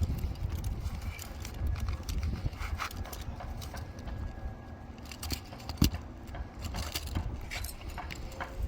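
Climbing and rigging gear being handled: scattered light metallic clinks and rattles of carabiners, the sharpest about six seconds in, over a low rumble of wind on the microphone.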